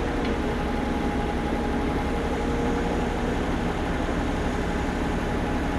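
Heavy diesel engine of work machinery running steadily, at an even low rumble.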